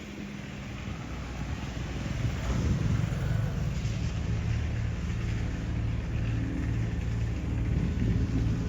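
A motor engine running with a low, steady hum, growing louder over the first few seconds and then holding.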